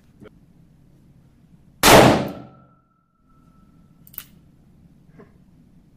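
A single shot from a Smith & Wesson .357 Magnum revolver with a 6-inch barrel about two seconds in, loud and sharp, ringing off in a small padded range room. Light clicks come just after the start and again about four seconds in.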